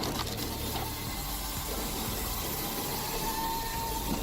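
Wood-processing machinery running with a steady hissing noise, a faint thin whine coming in near the end.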